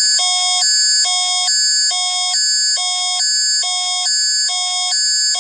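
Canadian Alert Ready emergency alert attention tone: loud electronic tones switching back and forth between two high chords about twice a second, heralding a civil-danger alert.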